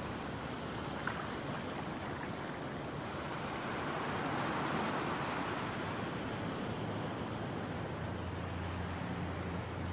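Steady rushing noise that swells a little around the middle, with a low hum coming in near the end.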